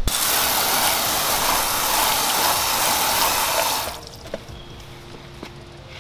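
Water spraying from a hose onto a car's front bumper, rinsing off bug and tar remover. The spray cuts off suddenly about four seconds in.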